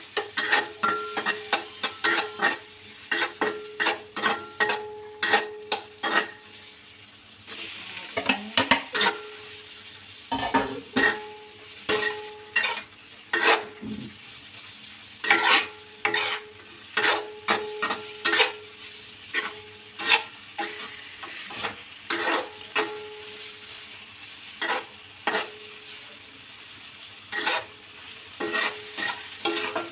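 A metal spatula knocking and scraping against a stainless-steel wok while minced pork and chili are stir-fried, about one or two strikes a second, each leaving the pan briefly ringing. Steady frying sizzle underneath.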